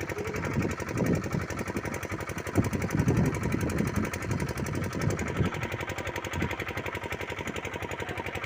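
A small engine running steadily with a fast, even beat, with louder, uneven low rumbles between about one and five and a half seconds in.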